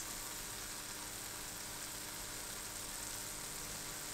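Churros deep-frying in hot oil in a small pan, a steady, even sizzle.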